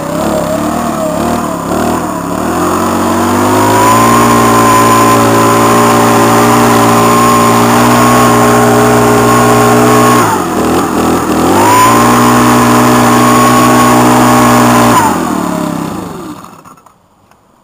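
A small petrol leaf blower engine, just cold-started, idles unevenly, then is throttled up to a steady full-speed run. Near the middle it drops briefly back towards idle and is throttled up again. Near the end it is throttled down and shut off.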